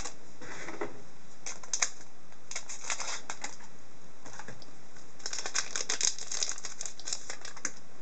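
Hockey card pack wrapper crinkling and tearing as it is opened, in several bursts of crackling, the longest one in the second half.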